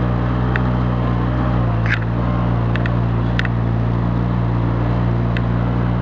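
A four-wheeler ATV engine running steadily at low speed as it drives along a grassy track. Its note shifts slightly about two seconds in, and a few faint clicks sound over it.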